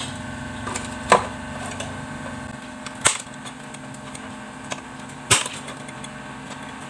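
Three sharp knocks, about a second, three seconds and five seconds in, as a metal grass-trimmer plate is handled and set down on the wooden board of a bench drill press. A steady low hum runs underneath.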